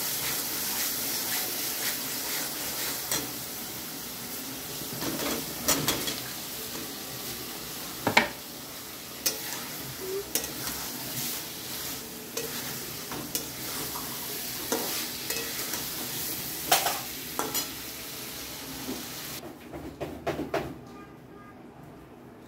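Red masala frying and sizzling in an aluminium kadai while a metal spatula stirs it, scraping and clinking sharply against the pan every second or so. Near the end the sizzle drops away, leaving a few clinks and a quieter simmer.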